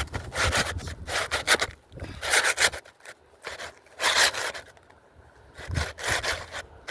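Asphalt shingle scraping and rubbing against the surrounding shingles as it is slid back into place, in about four separate bursts.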